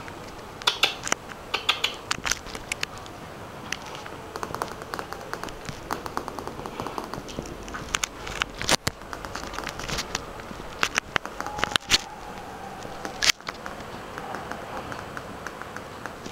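Light, irregular clicking and scratching of small puppies' claws on a tiled floor as they scamper and play, with a few louder knocks.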